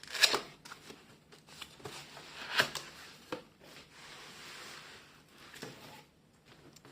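Plain cardboard box being opened and its contents handled: two sharp scraping rustles, one just after the start and one about two and a half seconds in, a few lighter knocks, and a steady soft rustle of cardboard or packaging in the middle.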